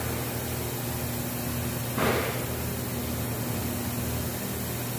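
Steady electric hum and hiss from an overhead bridge crane holding a steel roof section, with one clank about two seconds in.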